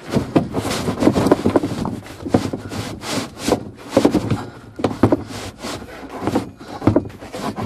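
Wooden bed board being shoved and worked into place, with repeated irregular knocks and scraping as it rubs against the van's interior.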